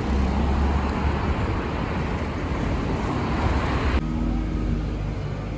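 City street traffic: cars and a bus running on the road, a steady low rumble. About four seconds in it cuts abruptly to quieter street noise.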